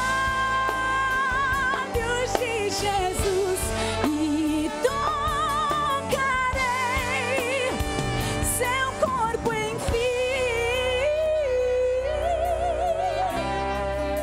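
Gospel song with church orchestra accompaniment and a woman singing long, wavering held notes over it.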